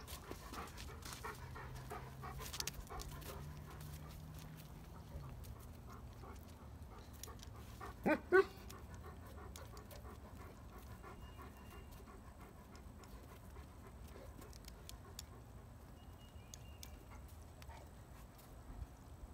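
A dog panting, with two short, louder cries close together about eight seconds in.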